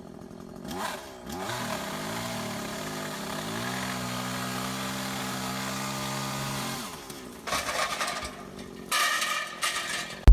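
A motor winds up over about a second, runs at a steady pitch for about five seconds, then stops; a few short scraps of other sound follow near the end.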